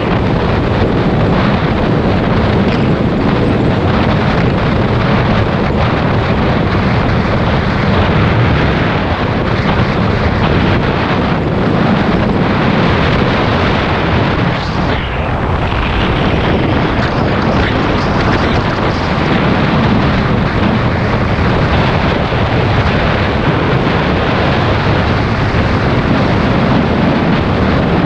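Loud, steady wind rushing over the microphone of a moving motorbike, with the bike's engine and tyre noise running beneath it.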